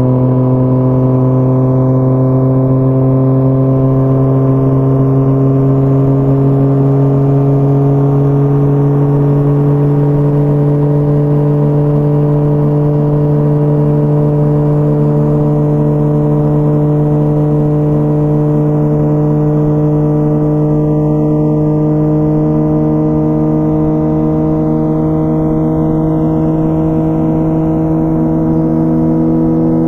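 2004 Honda CBR1000RR Fireblade's inline-four engine heard through a Jardine titanium exhaust, pulling steadily in one gear at highway speed with its revs climbing slowly and evenly.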